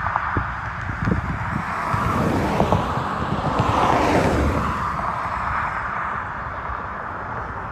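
Wind buffeting the microphone with a steady rush and a few low knocks, and a car passing by on the highway, swelling and fading about three to five seconds in.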